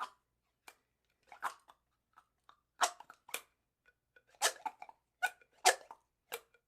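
Plastic drinking straw squeaking: a string of short, irregular squeaks, the loudest clustered in the second half.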